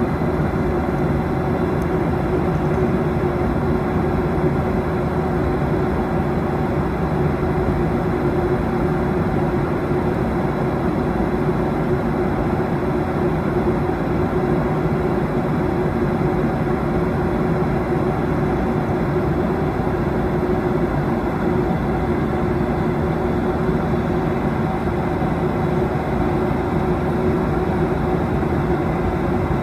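Steady cabin noise inside a Boeing 737-800 under way: its CFM56 jet engines and the airflow give an even rush with a steady hum running through it.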